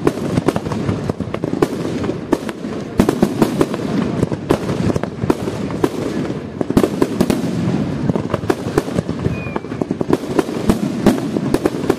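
Aerial fireworks display: bursting shells give a rapid, irregular string of bangs and cracks, over a steady low rumble.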